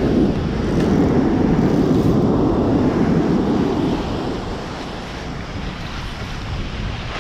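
Wind buffeting the microphone over breaking ocean surf, a dense low rumble that is heavier for the first four seconds and then eases somewhat.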